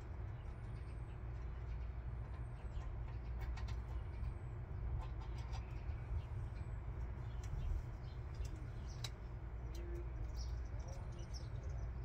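Steady low rumble with scattered light clicks and taps from hands working at the van's bare sheet-metal ceiling. A thin high chirp that rises and falls repeats about every second and a half to two seconds.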